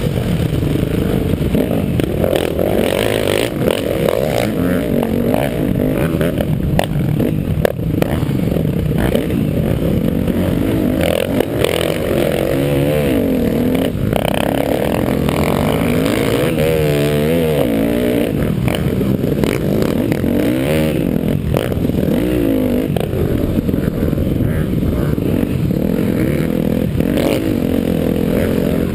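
Dirt bike engine under way on a rough dirt trail, its revs rising and falling over and over with the throttle. Scattered knocks and clatter come from the bike over the rough ground.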